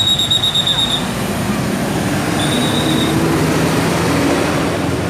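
A large bus passing close by, its engine and road noise loud and steady, with the engine pitch rising in the middle. A high steady squeal sounds briefly at the start and again about halfway through.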